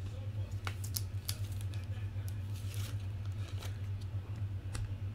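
Trading cards and their plastic sleeves being handled: a scattering of light, irregular clicks and rustles over a steady low hum.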